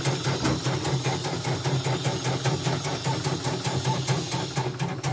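CNY portable embroidery machine stitching, its needle mechanism clicking in a fast, even rhythm over the steady hum of the motor. It is a test run after repair of a total power failure, and it runs smoothly without the thread breaking.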